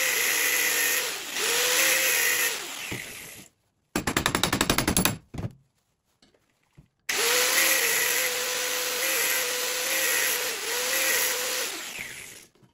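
Angle grinder cutting a slot into a steel hood-strut ball socket clamped in a vise, in two passes. The motor's pitch sags briefly as the disc bites, and near the end it winds down. Between the passes there is a brief fast rattle of clicks.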